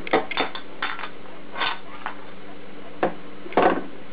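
Metal tongs clinking and clattering against a wire deep-fryer basket and a ceramic plate as fried apple pieces are lifted out and set down. There are several separate clinks, loudest just after the start and again near the end.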